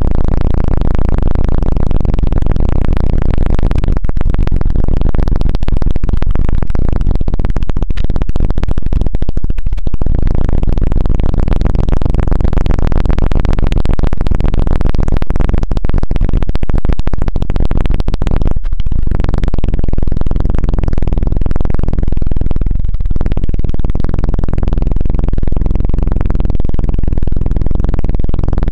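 ASMR 'helicopter' sound: fingers rubbing rapidly over the microphone, making a loud, low, continuous 'tu-tu' flutter with a few brief dips.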